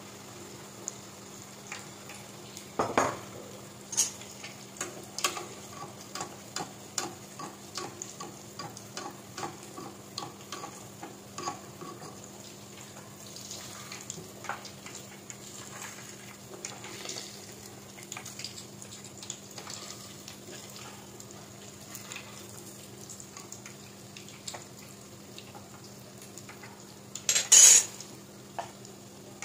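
Battered eggs (kwek kwek) deep-frying in hot oil in a pot with a steady sizzle. A ladle and spoon stir them and knock against the pot, giving a run of light taps for several seconds. Near the end comes one louder burst of noise.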